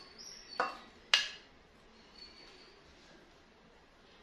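A metal spoon clinks twice against a bowl while chicken pieces are spooned onto fries, the second clink louder and ringing.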